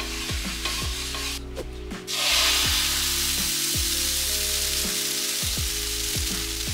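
Oat crepe batter sizzling in a hot pan, the hiss cutting out briefly and then returning louder about two seconds in, over background music.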